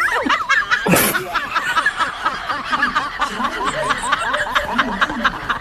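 Laugh track: many people laughing and chuckling at once, a steady dense wave of laughter following a joke's punchline.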